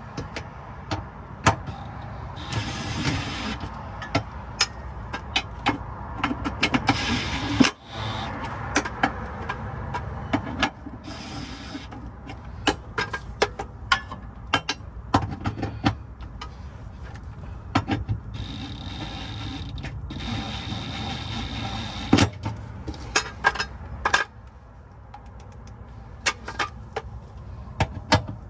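DeWalt 20V cordless impact wrench run in several short bursts, spinning bolts into the transmission crossmember, with a steady whine during the longest run. Sharp clanks and clicks of the socket and metal parts between the runs.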